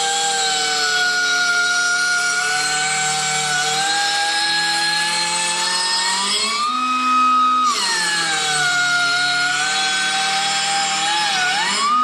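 Electric grinder grinding a lawnmower blade still mounted under the deck: a steady motor whine with a grinding hiss, its pitch sagging under load. A little past halfway it comes off the blade for about a second and spins up to a higher whine before biting again, and it speeds up again near the end.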